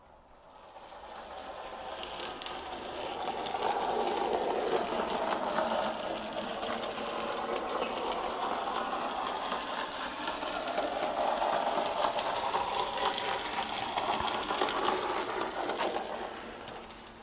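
N gauge model tank locomotive running along the track, its small electric motor whirring and its wheels clicking over the rail joints. It grows louder over the first few seconds, swells twice as it passes close, and fades away near the end.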